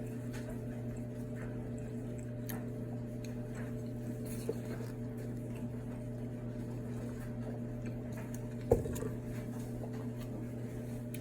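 Faint chewing and mouth sounds from eating a breaded buffalo chicken strip, over a steady low hum, with one sharp click near the end.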